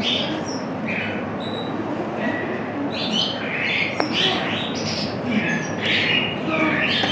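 Many short, high chirps and squawks come one after another over a steady background murmur of voices. There is one sharp click about four seconds in.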